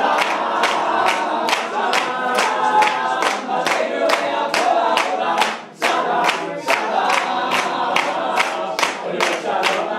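Men's a cappella group singing an upbeat song while the crowd claps along in time, about three claps a second, with a brief break about six seconds in.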